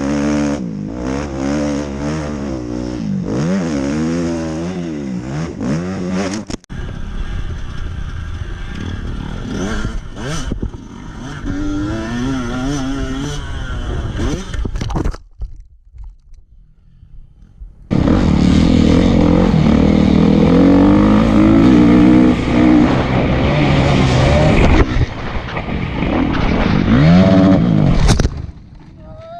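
Motocross dirt-bike engines revving up and down and passing, in several short stretches that change abruptly, with a quieter gap about halfway through.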